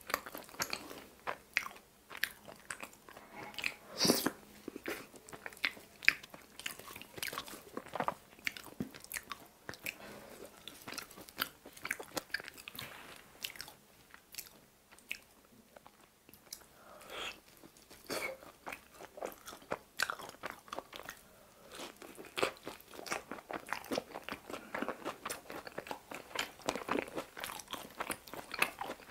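A person biting and chewing crispy pizza crust: a steady run of crunches and wet chewing clicks, briefly quieter about halfway through.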